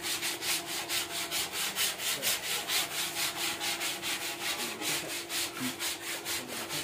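Fast, even rhythmic rubbing or scraping, about five to six strokes a second, like hand sanding, over a faint steady hum.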